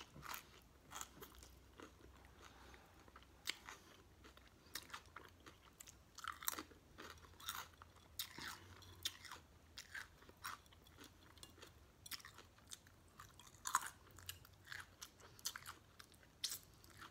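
A person chewing a mouthful of cold cut combo sub sandwich with lettuce, onion and pickle, close to the microphone: many small, irregular crunches and wet mouth clicks.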